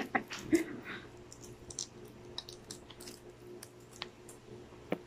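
Sparse small clicks and crackles of a cooked shrimp's shell being peeled apart by hand, over a faint steady hum.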